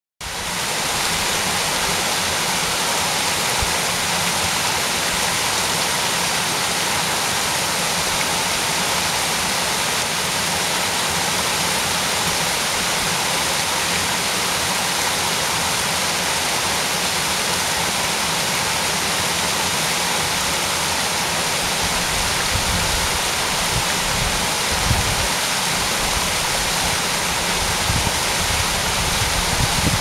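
Small waterfall cascading over rock ledges into a stream pool: a steady, unbroken rush of falling and splashing water.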